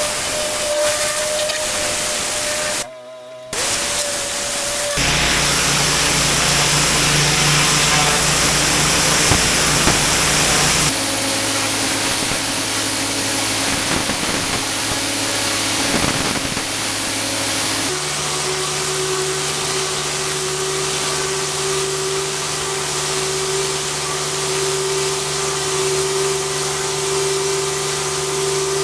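Pressure washer jet hissing against patio paving over the steady hum of the machine's engine and pump. The sound shifts abruptly several times as the clips are cut together.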